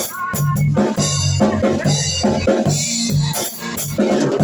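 Hard rock music: a drum kit playing busily over a bass line of repeated low notes.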